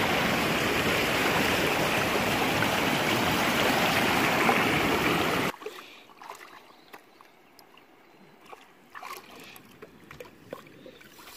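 River rapids rushing, a steady rush of water that cuts off abruptly about five and a half seconds in. Then soft, scattered splashing and sloshing as a dog wades in shallow water and mouths a carp at the bank.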